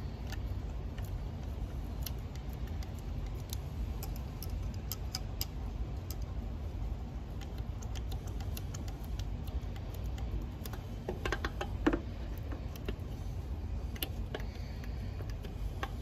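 Light metallic clicks and taps of a hand tool and small parts against a motorcycle's open cylinder head, scattered throughout, with a short run of louder clinks about eleven to twelve seconds in. A steady low rumble sits underneath.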